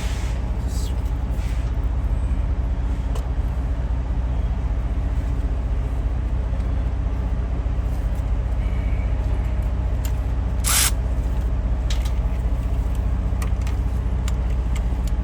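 A steady low engine hum runs throughout, with one short sharp click or hiss about 11 seconds in and a few faint ticks.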